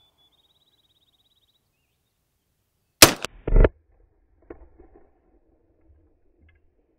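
A 12-gauge shotgun firing a one-ounce rifled slug: a sharp blast about three seconds in, a second loud bang about half a second later, then a few faint knocks.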